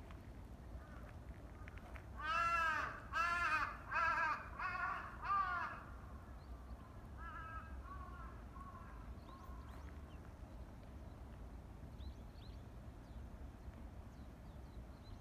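A crow cawing five times in quick succession about two seconds in, each caw rising and falling in pitch, followed a couple of seconds later by a fainter series of about four caws.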